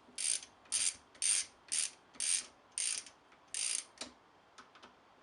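Ratchet wrench clicking in a run of about seven short strokes, roughly two a second, as steering box bolts are snugged a quarter turn each.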